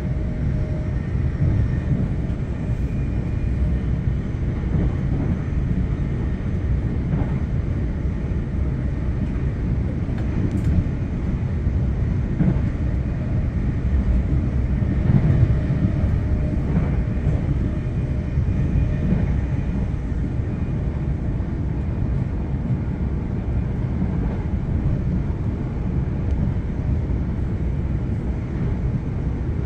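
Passenger train running with a steady low rumble and a few faint knocks here and there.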